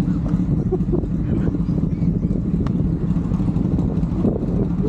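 Motorcycle engine running steadily while riding, with an even low hum that neither rises nor falls.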